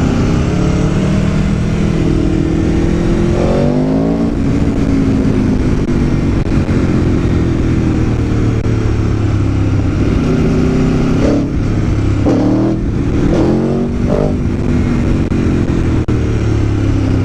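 Aprilia Tuono V4 1100 APRC's V4 engine on the move, heard from the bike. The revs rise once about four seconds in, hold lower and steadier for a while, then rise in several short bursts near the end.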